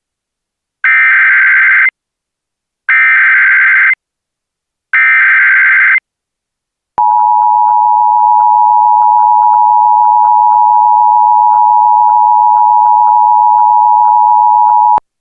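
Emergency Alert System broadcast tones: three one-second bursts of buzzing SAME digital header data about a second apart, then the steady two-tone EAS attention signal (853 and 960 Hz) held for about eight seconds before cutting off suddenly. The sequence marks the start of an official emergency alert.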